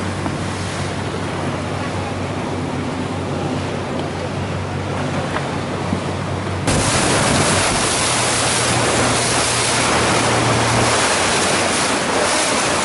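Speedboat engine running steadily under a rush of wind and water. About two-thirds in, the wind and water noise suddenly gets louder.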